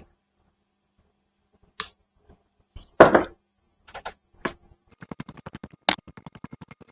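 Clicks and knocks from handling the air suspension compressor assembly as it goes back into the car, with one heavier knock about three seconds in, then a quick run of rapid ticks in the second half, like a ratchet.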